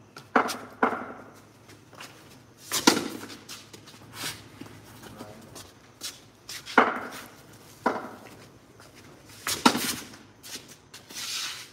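About six sharp, irregularly spaced knocks from a cricket ball on a concrete pitch, bouncing and being struck by the bat.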